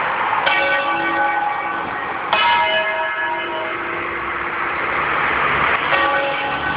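Church bells pealing: a new strike about half a second in, another a little over two seconds in and another near the end, each ringing on with a cluster of overtones as the earlier ones fade. A motor vehicle's hum builds under the bells in the second half.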